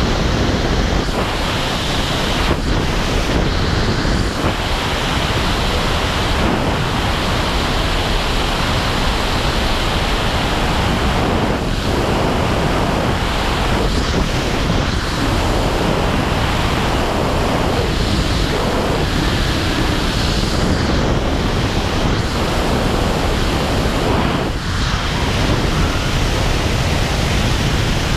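Steady, loud rush of high-speed airflow over a helmet camera's microphone during wingsuit freefall, dipping briefly a couple of times.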